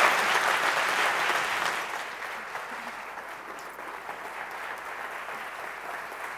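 Conference audience applauding, loudest at first and dying down after about two seconds to lighter, steady clapping that carries on.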